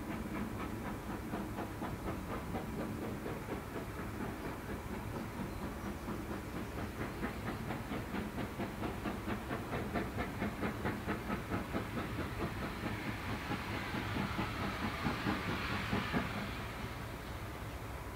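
GWR Castle Class 4-6-0 No. 4079 'Pendennis Castle', a four-cylinder steam locomotive, working steam as it approaches, its exhaust beating rhythmically at about four beats a second. A hiss of steam builds over the last few seconds, then falls away near the end.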